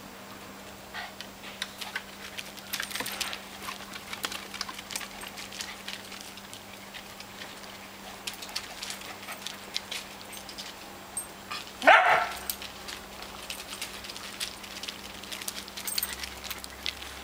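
A small group of dogs playing, their paws tapping and scratching on wooden decking and bark chips, with one loud, short bark about twelve seconds in.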